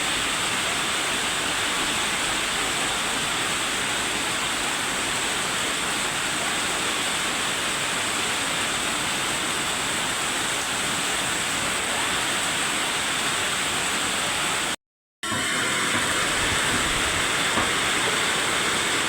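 Heavy rain pouring down as a steady, dense hiss, cutting out for a moment about fifteen seconds in.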